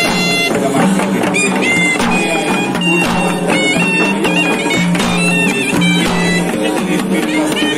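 Sri Lankan procession music: a shrill horanewa reed pipe playing a stepping melody over a sustained low tone, with frequent drum strokes from davul drums.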